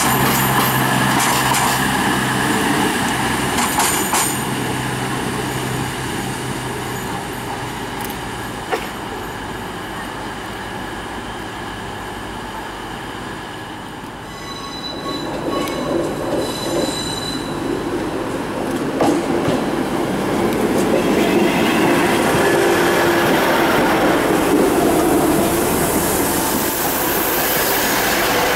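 A CrossCountry Voyager diesel multiple unit's underfloor diesel engines run with a steady low drone as it moves away. About halfway through another diesel train takes over with brief high-pitched squealing, then a rumble and hiss that build as it draws in.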